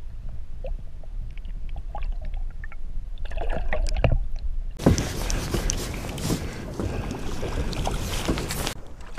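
Muffled underwater sound from a camera held below the river surface: a low rumble with faint scattered clicks. About five seconds in it changes suddenly to loud hissing splashing water with sharp clicks, as a hooked striped bass thrashes at the surface beside the boat, then drops away near the end.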